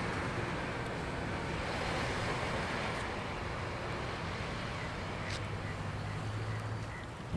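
Wind noise and a steady low engine hum, with a few faint ticks and one short click in the second half.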